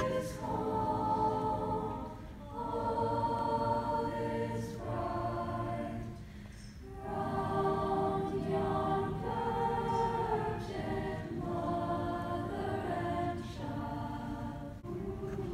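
A madrigal choir singing together in parts, in long held phrases, with short breaks about two seconds in and again near seven seconds.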